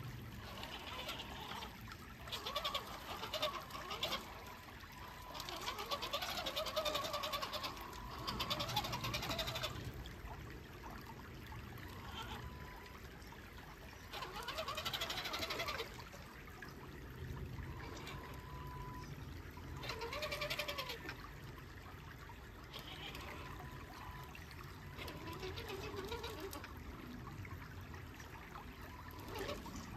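Electric motor of a radio-controlled 6x6 crawler truck whining in repeated bursts, its pitch rising and falling with throttle, over the steady trickle of creek water.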